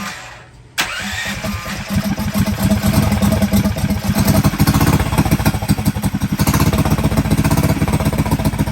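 Small engine on a homemade mini bike. After a brief drop in sound at the start, it runs again from about a second in with a fast, even firing beat, getting louder as it is revved up over the next few seconds.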